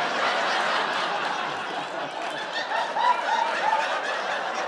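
Studio audience laughing, with a few individual voices whooping above the crowd about three seconds in.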